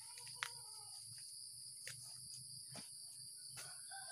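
Steady high-pitched drone of insects in garden vegetation, with a few light clicks and rustles of leaves and stems being handled.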